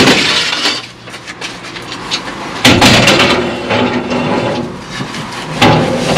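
Aluminium ladder and aluminium scaffold tower frames scraping and clattering against each other and the van's floor as they are pulled out of the back of a van. Loud metal clatters come at the start, about three seconds in and near the end.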